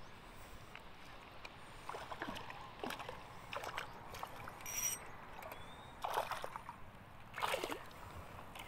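A small hooked snapper thrashing at the water's surface as it is reeled in: a series of short, separate splashes spread through the few seconds.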